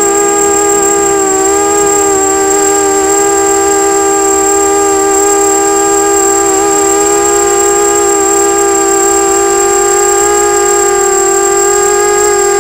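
A 250-size FPV racing quadcopter's electric motors and propellers whining steadily, heard from its onboard camera, with the pitch wavering slightly as the throttle changes. A thin, steady high tone sits above it.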